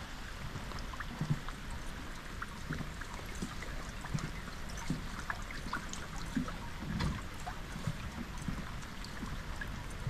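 Light rain falling on a lake and a wet wooden dock: a steady hiss with scattered ticks of single drops, and soft, irregular low thumps.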